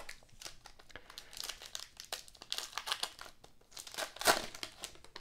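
Foil wrapper of a Donruss Elite trading-card pack crinkling as it is handled and torn open, with irregular crackles and the loudest rip a little over four seconds in.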